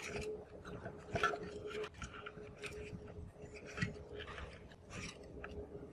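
Car stereo head unit's metal chassis scraping and clicking against the edges of the wooden panel as it is worked into its opening by hand, in short irregular scrapes over a faint steady hum.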